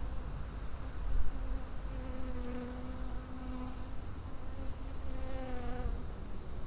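Insect buzzing: a steady low buzz with overtones that swells, wavers in pitch near the end and cuts off about six seconds in.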